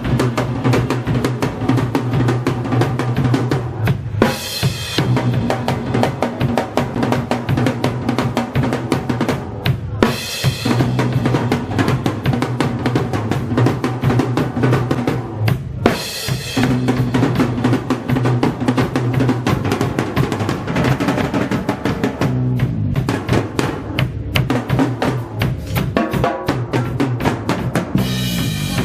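Live instrumental trio music with the drum kit to the fore, busy snare and cymbal strokes over a held low bass line.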